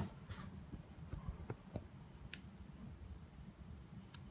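A sharp click right at the start, then a few faint, scattered light clicks and taps over a low, steady background hum: handling noise from the camera being moved in close and a drill bit being held against a grinder belt that is not running.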